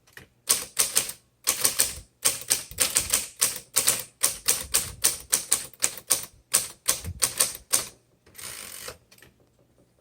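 A 1972 Smith Corona Classic 12 manual typewriter being typed on, a quick run of sharp key strikes about three to four a second, followed near the end by a brief scraping sound.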